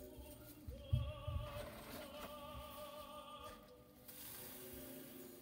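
Soft background music with long, held sung notes that waver in pitch; a few faint low knocks about a second in.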